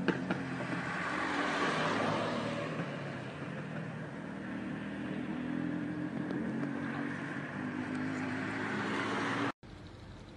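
City bus engine running at a stop, a steady drone under a broad rush of noise that swells about two seconds in. The sound cuts off suddenly near the end and gives way to quieter street noise.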